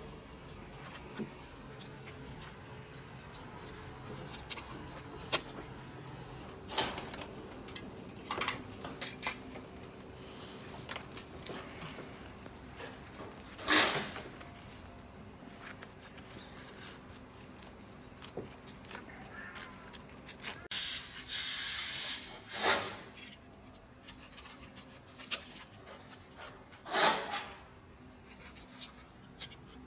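Hand work on an air conditioner installation: scattered knocks, clicks and rubbing, with a loud hiss lasting about two seconds a little past the two-thirds mark.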